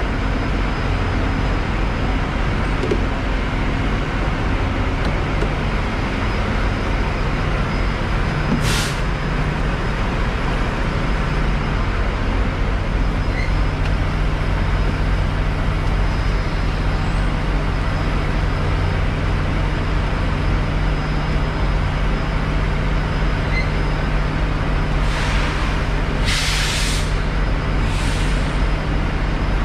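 Semi-truck diesel engine idling with a steady low hum. There is a short hiss at about nine seconds and three more short hisses close together near the end.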